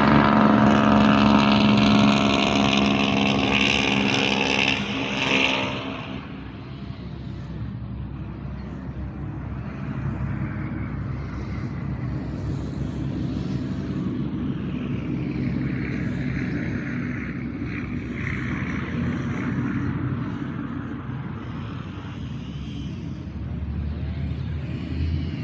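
A motor vehicle's engine, loud for about the first five seconds, then dying away to a steady low rumble.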